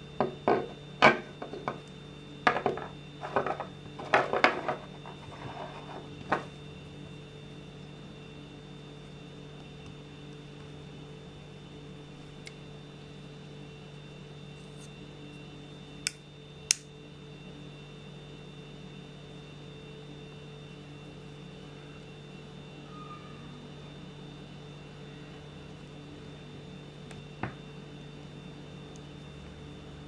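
Sanrenmu SRM 711 stainless-steel folding knife being worked by hand: a quick run of metallic clicks and clacks as the blade and handle move and snap into place over the first six seconds, then two single sharp clicks midway and a faint one near the end. A steady hum lies under it all.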